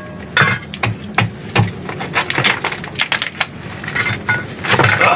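Steel trowel scraping and knocking loose broken concrete and hollow-block rubble from an opened tomb front, with chunks clinking against each other. The clicks and scrapes come irregularly, several a second, and are thickest near the end.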